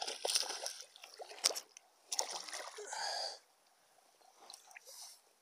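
Water splashing and sloshing at the side of a float tube as a hooked bass is played in and landed, with a few sharp knocks from handling. It dies down about three and a half seconds in.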